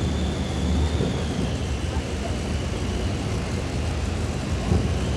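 Modified pulling tractor powered by twin Allison V12 aircraft engines, running steadily on the line before its pull, with a thin high whine held over the low engine note.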